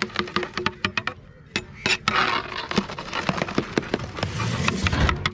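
Long-handled metal ladle stirring rice in a large metal cooking pot (degh), scraping and knocking against the pot's sides and bottom in irregular clicks and scrapes.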